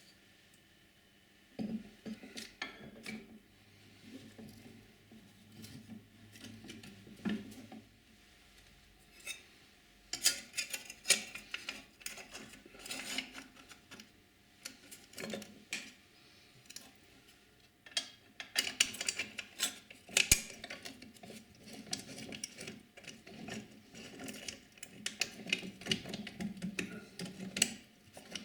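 Metal parts of an old tram gear shifter clinking and knocking as they are handled and fitted back together: scattered clicks at first, then busier spells of clatter.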